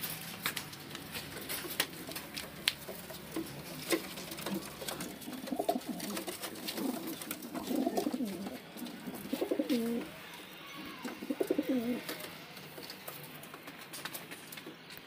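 Domestic pigeons cooing: a run of low, wavering coos from about five seconds in until about twelve seconds. Scattered sharp clicks come mostly in the first few seconds.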